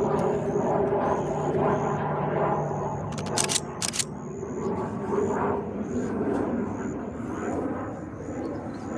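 Pilatus PC-21 turboprop trainer flying by, a steady propeller and engine drone. Over it a faint high chirp repeats about twice a second, and two sharp clicks come about three and a half seconds in.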